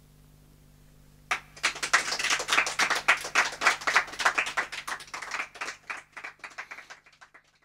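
A small group of people clapping at the end of a song. The applause starts about a second in, is strongest early, and dies away near the end.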